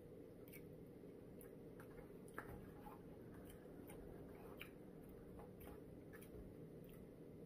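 Near silence, with faint, irregular small clicks and ticks of someone eating from a takeout meal.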